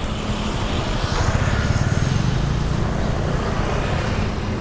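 Road traffic on a busy street: steady traffic noise, with a motor vehicle's engine rising as it passes close by from about a second in.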